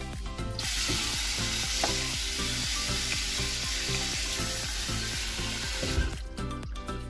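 Tap water running onto boiled noodles in a plastic colander: a steady hiss that starts about half a second in and cuts off abruptly near the end, with background music underneath.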